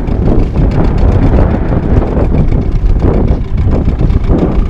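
Strong wind buffeting the microphone in uneven gusts, over the low running of a small boat's outboard motor at trolling speed.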